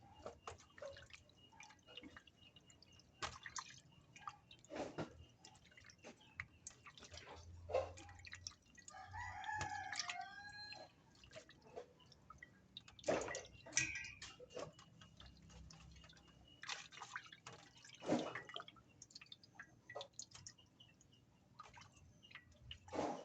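Raw chicken meat being washed by hand in water: irregular wet squelches, splashes and drips. A rooster crows once about nine seconds in.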